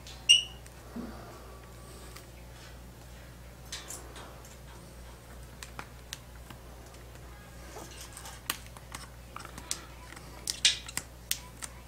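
Hands working a vinyl decal onto a motorcycle helmet shell: scattered small clicks, rustles and crackles of the vinyl being handled and pressed, busiest near the end. There is one brief high ringing tone just after the start.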